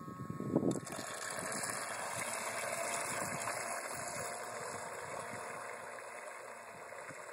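Electric motor and propeller of a homemade radio-controlled carp bait boat running as the boat drives away across the water. A brief knock about half a second in; the running sound swells about a second in and then slowly fades.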